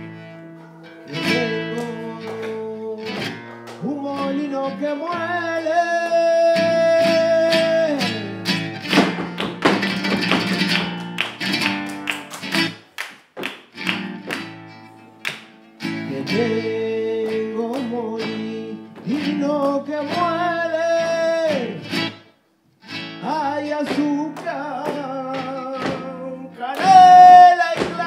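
Live flamenco: a flamenco guitar played while a singer holds long wavering notes, with sharp taps from the dancers' footwork cutting in. The music drops out for a moment about two-thirds of the way through, and the loudest sung note comes near the end.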